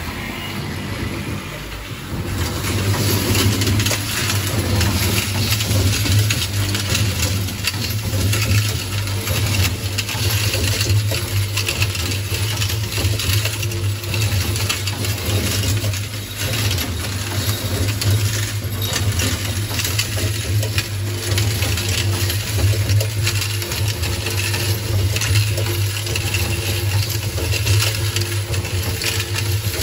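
Automatic screw assembly machine starting up about two seconds in, then running: a steady low hum from the vibratory bowl feeder under a constant patter of small metal clicks and rattles as screws are fed and the rotary table and pneumatic screwdriver head work.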